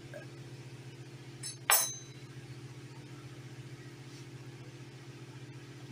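A metal kitchen knife clinks once on the counter as it is set down, about two seconds in, with a brief ring. A steady low hum sounds throughout.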